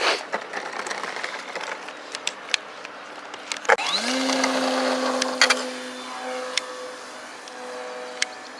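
Electric motor of a radio-controlled model spinning up with a quick rising whine about four seconds in, after a click, then running at a steady pitch and slowly fading. Scattered light clicks come before it.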